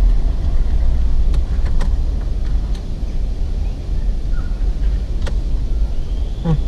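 A steady low rumble, with a few light clicks as metal radio-removal keys are worked into the slots of a car stereo head unit to release it from the dash.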